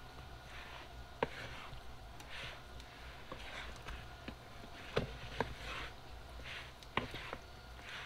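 Wooden spoon stirring cooked sliced steak, onions and mushrooms in a mixing bowl: soft wet squishing of the food, with a handful of sharp knocks as the spoon hits the bowl.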